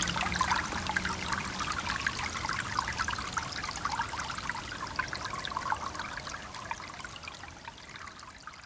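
A stream trickling and gurgling: a steady wash of running water full of small splashes, fading out gradually toward the end.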